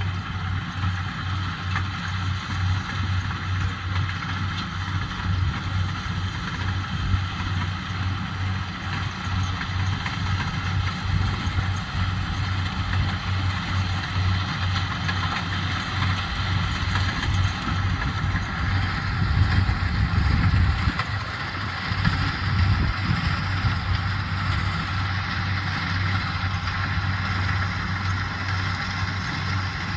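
Corn harvesting machine running steadily: a low engine drone with steady higher mechanical tones over it, briefly louder about two-thirds of the way in.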